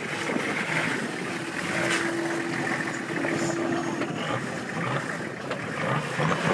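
An off-road 4x4's engine running under load, with a steady note held for a couple of seconds in the middle.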